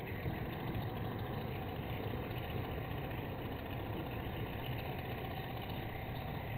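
An engine running steadily, heard through a security camera's microphone.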